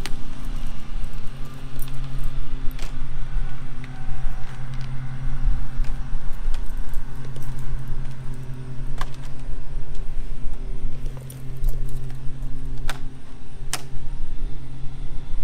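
A steady, loud, low mechanical hum, like a motor running, under a few sharp clicks and light rattles from long vinyl siding panels being handled and snapped into the starter strip.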